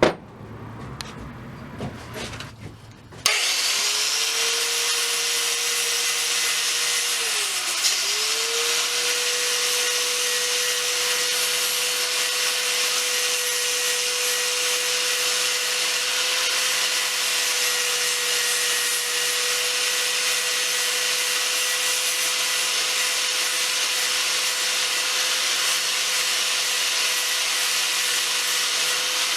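Angle grinder with a flap disc running against the hammer's cast head: a steady motor whine over a grinding hiss. It starts about three seconds in after a few light clicks, and its speed sags briefly about eight seconds in before picking back up.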